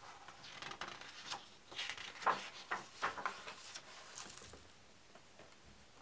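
A page of a hardcover book being turned by hand: the paper rustling and crackling for about four and a half seconds, with a brief swish near the end.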